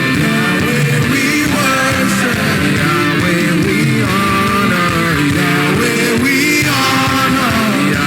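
Worship music: a band playing with voices singing along, steady and full throughout.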